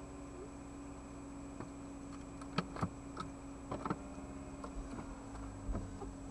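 Inside a stopped car's cabin, a steady low hum is broken by a scatter of sharp, irregular ticks and taps, most of them between about two and four seconds in. About five seconds in a low rumble rises as the windshield wipers sweep the snow-covered glass clear.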